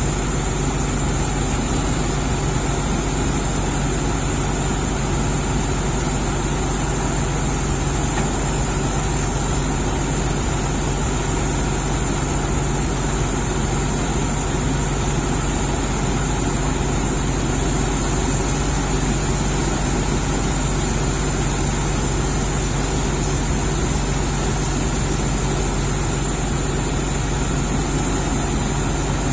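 Heavy diesel engine idling steadily, with no revving or change in speed.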